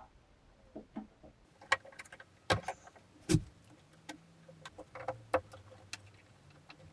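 Irregular clicks, taps and knocks of hand work with small tools and parts, three of them louder in the first half, with a faint low hum coming in about halfway.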